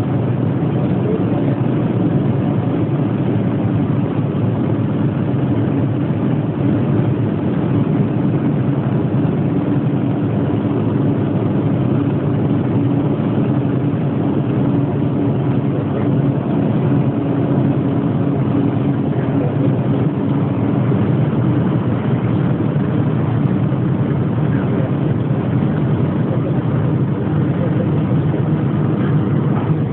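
Passenger train running, heard from inside the carriage: a steady rumble with a low hum.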